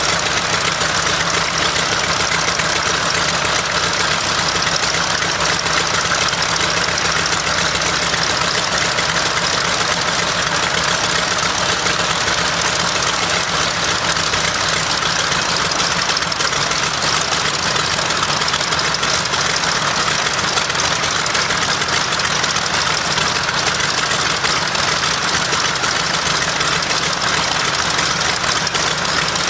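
Mitsubishi A6M Zero fighter's Nakajima Sakae 14-cylinder radial engine running steadily on a ground test run.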